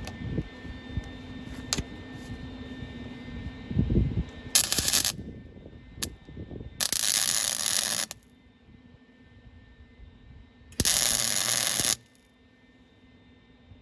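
Welder arcing in three short bursts, crackling and hissing, the last two about a second long each, as nuts are welded onto seized hinge screws to back them out. Metal clatter and knocks come before the first burst.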